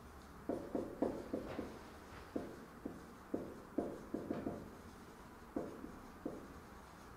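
Writing on a board: a run of short, irregular taps as the strokes go down.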